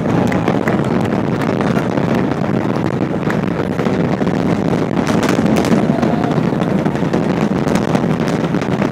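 Space Shuttle Atlantis's rocket motors heard from miles away during ascent: a steady, loud, deep rumble shot through with sharp crackling.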